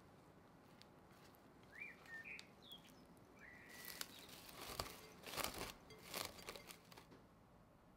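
Plastic cling film crinkling and crackling as it is pulled and stretched over a glass bowl, for about three seconds from partway in. A few faint bird chirps come before it.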